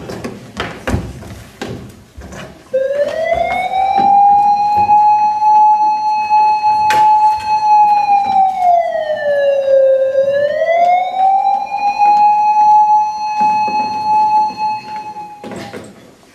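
Siren sound effect: one loud, steady wail that starts about three seconds in with a rise in pitch, holds, sags and swells back once near the middle, then cuts off near the end. A few knocks and thuds come before it.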